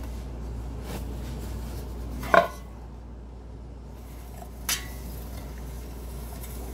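Metal springform tube cake pan clanking as it is handled during greasing: one loud, briefly ringing clank about two and a half seconds in, then a lighter knock near five seconds. A steady low hum runs underneath.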